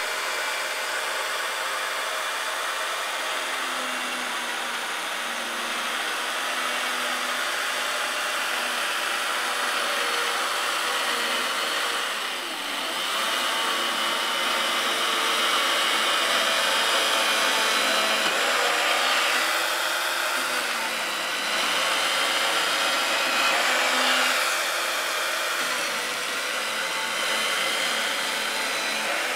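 Electric chain mortiser running, its cutting chain plunging into a timber beam: a steady motor whine whose pitch and loudness shift as the chain bites into the wood, with a brief dip about twelve seconds in.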